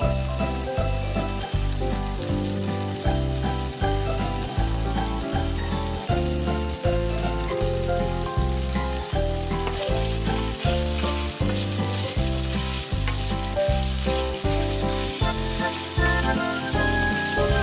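Pork slices sizzling steadily as they fry in a nonstick pan, stirred with a spatula near the end, under background music with a steady beat of about two pulses a second.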